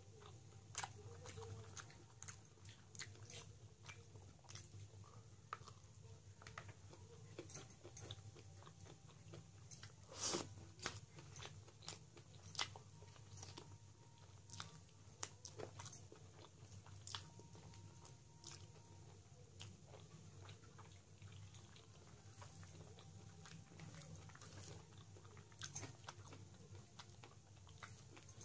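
Faint close-up chewing and wet mouth smacks of a man eating rice with mutton curry by hand, scattered soft clicks throughout over a steady low hum, with a louder click about ten seconds in.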